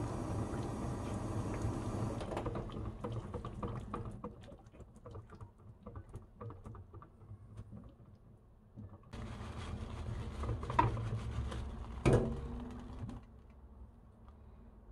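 Water boiling in a stainless saucepan around an upturned glass jar that is being sterilised, a dense pattering of bubbles and small ticks. Two sharp clinks come near the end, as the jar is knocked against the pot.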